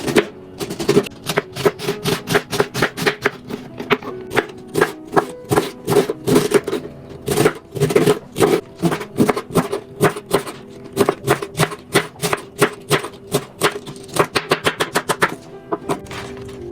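Knife chopping on a cutting board in quick, uneven strokes, speeding up near the end, over steady background music.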